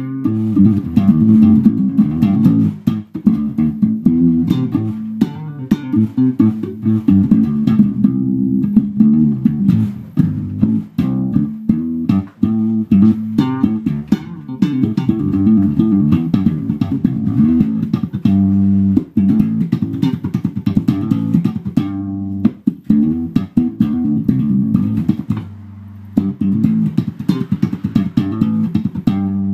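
Warwick electric bass guitar played solo in a funky style: fast runs of plucked notes with sharp, percussive attacks, and a brief pause near the end.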